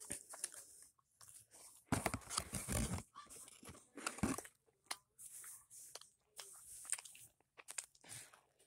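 Close mouth sounds of eating fast food: irregular crunching, biting and chewing, with a louder burst of rustling noise about two seconds in.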